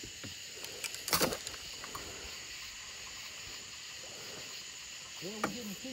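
Steady high-pitched chorus of night insects, with one sharp knock about a second in.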